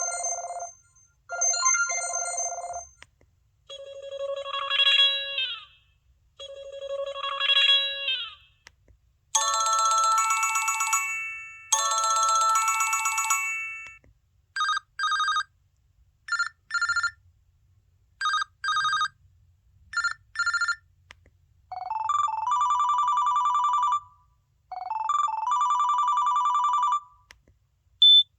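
LG-SH840 mobile phone playing a run of short electronic ringtones one after another, each repeated two to four times. First come chirping tones, then two gliding phrases that fall in pitch, two long chords, pairs of short beeps about every second and a half, and finally two runs of beeps stepping up.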